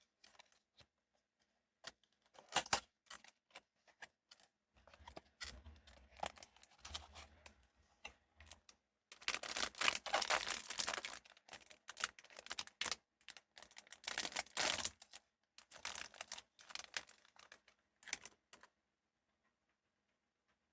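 Hands unboxing blind-box toy packaging: a run of sharp taps and clicks with short rustles of cardboard and plastic, the densest, loudest rustling around the middle.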